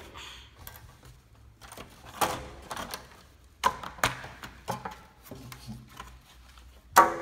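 Cardboard packaging rustling and a plastic toy car knocking as the toy is freed from its cardboard insert and lifted out of the tray: a few scattered knocks and clicks, with the sharpest knock near the end.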